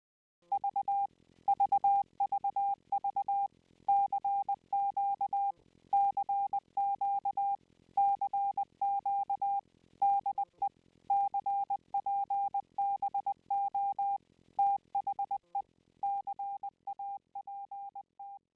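Morse code sent as a steady beeping tone, keyed in short and long pulses (dots and dashes) in groups with short pauses between them. It fades out near the end.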